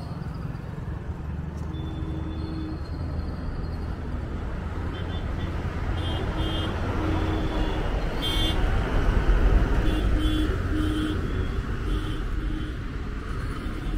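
Road traffic: a steady rumble of vehicles with several short horn toots, coming in groups from about five seconds in. The rumble grows louder a little after the middle.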